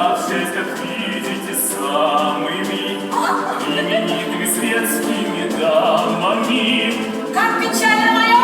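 A singing voice with vibrato over instrumental accompaniment, from a stage duet in a musical.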